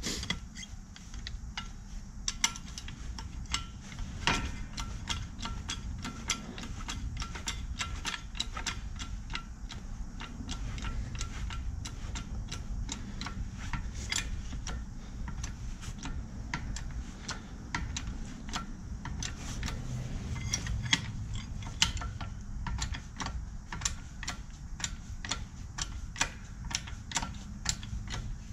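Rapid, irregular light metallic clicks and ticks from a shop press being worked by hand while a new bushing is pressed into a Stern adjustable control arm.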